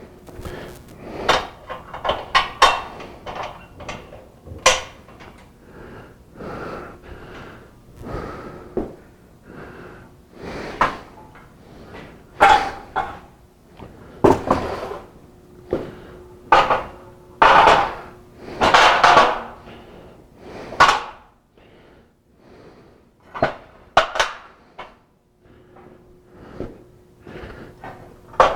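Portable platform scaffold parts being handled and fitted together: irregular sharp knocks and clicks, with a few longer scraping sounds in the second half.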